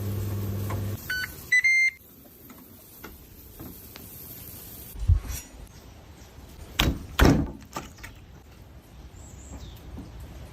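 A kitchen appliance's steady hum cuts off about a second in and is followed by a short run of electronic beeps; later come a few dull knocks.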